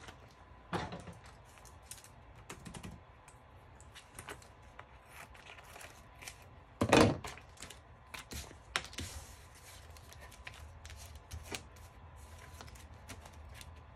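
Scattered light clicks and taps of small objects being handled on a tabletop, with one louder knock about seven seconds in.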